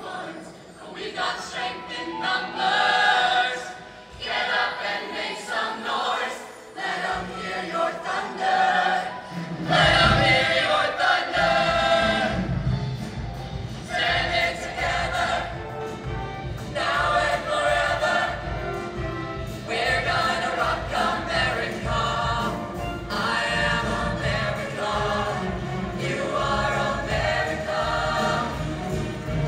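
Show choir singing in full chorus to a live accompaniment, with a heavy low backing coming in about ten seconds in.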